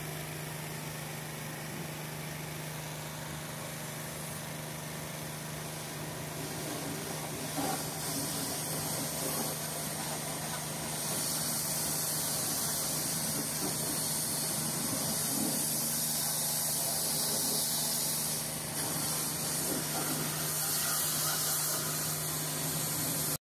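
Hot-water pressure washer spraying a truck's body panel: a steady hiss of water over a constant engine hum, the spray growing louder about eleven seconds in. It cuts off suddenly near the end.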